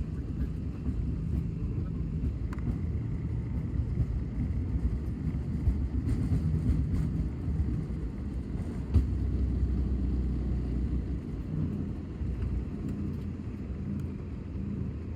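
Steady low rumble of an aeroplane heard from inside the cabin during takeoff, with a single thump about nine seconds in.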